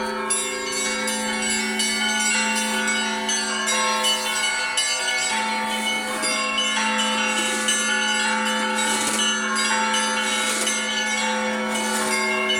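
Russian Orthodox church bells being rung: many bells struck in quick succession over a deep bell that keeps sounding underneath, their tones overlapping and ringing on.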